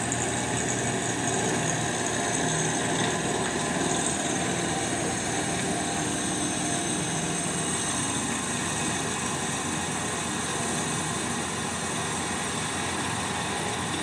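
Drill press running steadily, a constant motor hum and whine with no change in speed.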